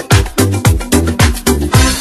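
Background music with a deep kick drum on a steady, fast beat, about three beats a second.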